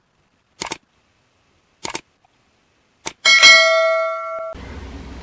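Three mouse-click sound effects a little over a second apart, the third followed at once by a bright bell notification chime that rings for about a second and fades. A faint low hum comes in near the end.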